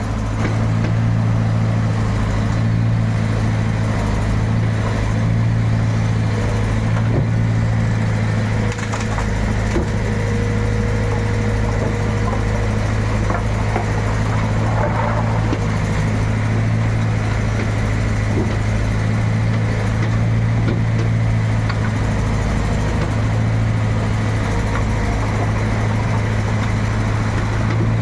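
Backhoe's diesel engine running steadily, with scattered knocks and cracks of wood as it loads wood into a truck.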